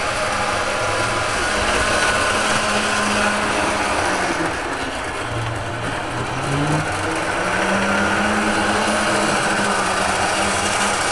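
Model train locomotives running on a layout: a steady electric motor hum and whir, its pitch rising about six seconds in.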